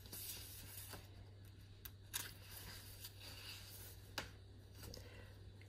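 Faint handling of a hardcover picture book as its page is turned: soft paper rustles and a few light clicks, the sharpest about two and four seconds in, over a low steady hum.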